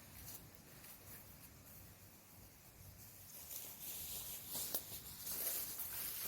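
Faint rustling with scattered light clicks and crackles, growing louder about three and a half seconds in.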